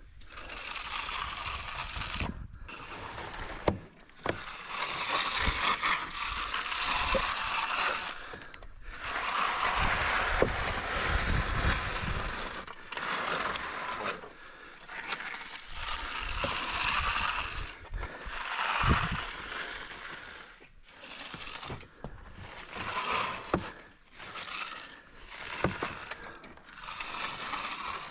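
Hand tool scraping over wet concrete in repeated strokes, each a second or two long: the surface being floated and finished.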